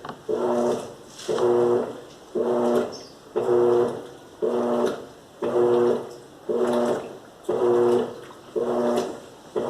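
Electrolux LAC13 top-loading washing machine agitating: the motor hums in a stroke about once a second, with water and clothes swishing in the tub, steady and rhythmic.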